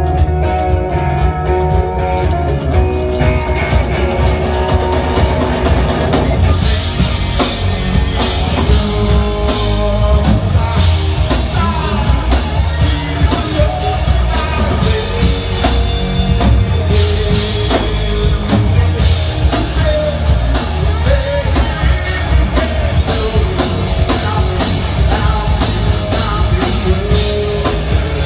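Live rock band playing: drum kit, electric guitar and bass. Cymbals come in brightly about six seconds in and keep going.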